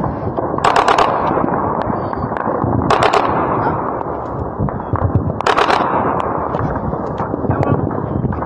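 Distant automatic gunfire: three short bursts of rapid shots about a second, three seconds and five and a half seconds in, with scattered single shots between, over a steady noisy background.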